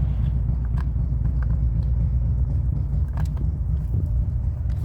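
A steady low rumble, with a few faint clicks from a van taillight's bulb socket and housing being handled as the light is plugged in.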